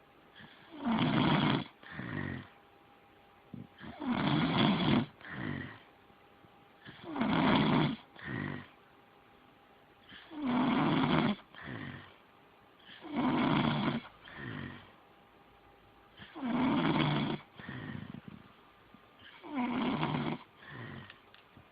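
Steady, rhythmic snoring: a loud snore about every three seconds, each followed by a shorter, quieter one.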